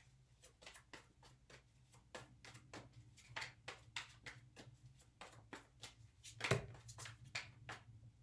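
Tarot deck being hand-shuffled overhand: soft card snaps and slaps about three a second as packets of cards drop from hand to hand, with one louder snap about six and a half seconds in.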